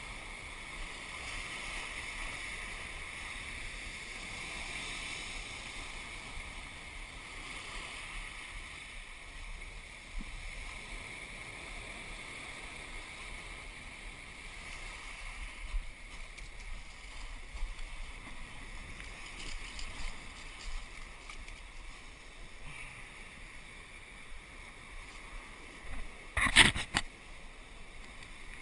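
Sea surf breaking and washing up and back over a pebbly beach, a steady hiss. A little before the end comes a quick cluster of sharp knocks, the loudest sounds here.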